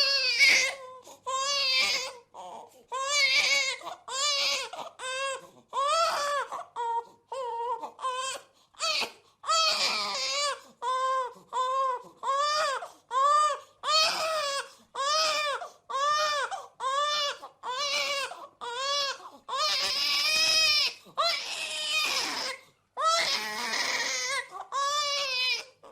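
Baby crying hard: a steady run of short, arching wails, about one a second, each broken by a quick breath, with a longer, harsher cry about twenty seconds in.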